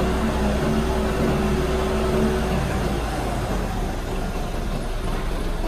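Engine of a mini crawler crane-excavator running as the tracked machine climbs onto a truck bed. A steady engine note fades out about three seconds in, leaving a rough, even mechanical noise.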